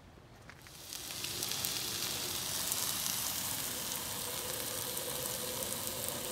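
Sliced mushrooms, onion and green bell pepper sizzling in a frying pan, starting about a second in and going on steadily with small crackles and pops.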